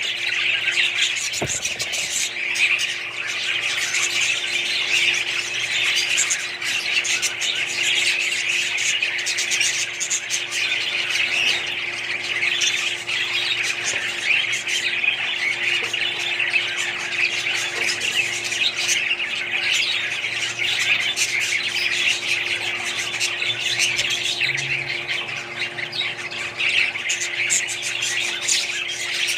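Many small parrots such as budgies chattering and squawking together, a dense and unbroken din, with a steady low hum underneath.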